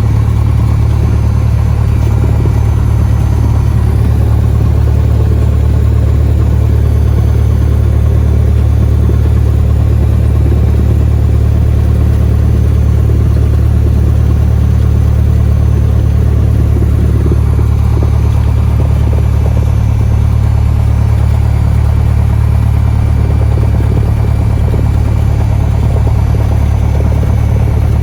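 Cessna 172's piston engine and propeller running at a steady speed: a loud, even low hum that does not change in pitch.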